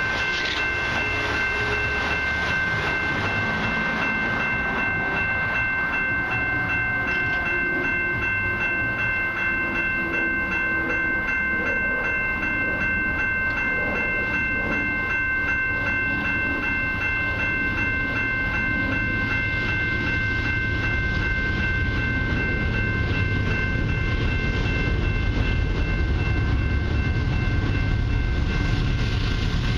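Railway level-crossing warning bells ringing steadily in a fast repeating pattern as the crossing signals activate. A low rumble, the approaching freight train, builds toward the end.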